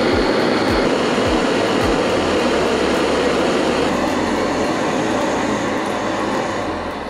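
Two canister gas camping stove burners, a Jetboil MightyMo and a Jetboil Flash, running at full flame with a steady hiss of gas and flame, fading a little near the end.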